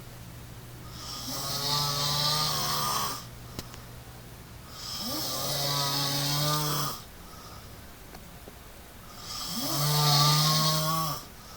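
A man snoring: three long snores of about two seconds each, coming roughly every four seconds, with quieter breathing between them.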